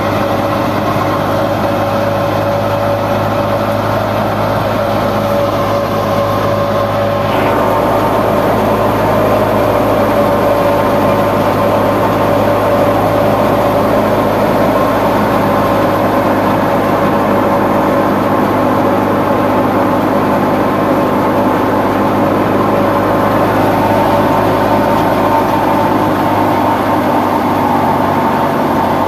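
Belt-driven wheat thresher running at a steady speed off a Fiat tractor's PTO, threshing wheat under load: a loud, constant machine drone with a held whine over it.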